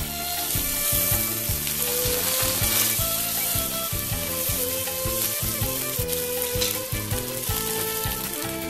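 Banana-leaf parcel of fish sizzling steadily on a hot ridged grill pan as it is turned over with wooden spatulas, with background music playing under it.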